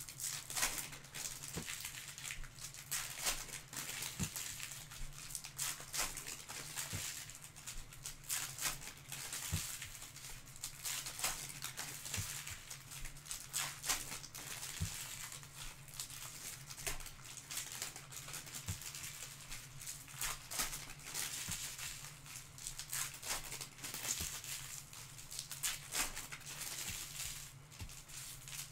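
Clear plastic cellophane wrapping crinkling and crackling as hands handle and tear it off a trading card box, with many small sharp crackles throughout.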